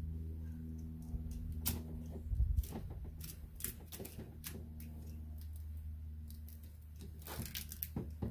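Duct tape being cut and pulled off the hose fitting of a muff-style motor flusher: a run of irregular clicks and crackles over a steady low hum.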